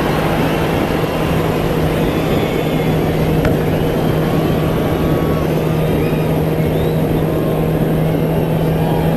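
A vehicle engine running at a steady speed, a constant hum under a dense rumble of road and wind noise, as heard while riding.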